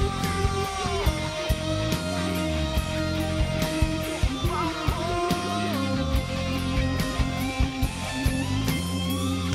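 Live rock band playing electric guitar and drums, with long, sliding lead notes held over a dense low accompaniment and regular drum and cymbal strokes.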